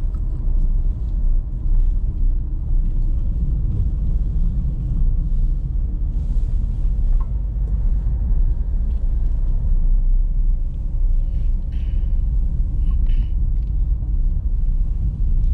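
A car driving along, with the engine running and a steady low road rumble.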